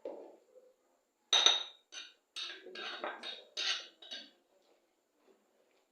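Metal spoon knocking against a cooking pot, about seven clinks in three seconds, the first the loudest with a short ringing note, as the cocoyam thickener (ede) is put into the soup.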